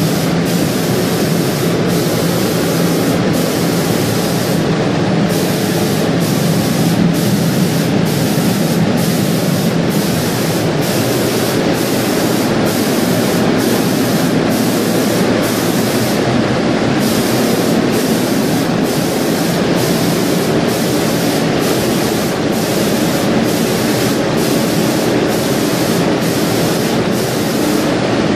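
Marble spray-painting machine running: a loud, steady hissing and humming machine noise that holds unchanged throughout.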